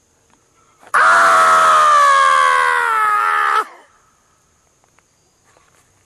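A sudden, very loud human scream bursting out of near silence about a second in, lasting about two and a half seconds, sagging slightly in pitch and cutting off abruptly. It is a jump-scare scream dropped into a quiet nature recording to frighten the listener.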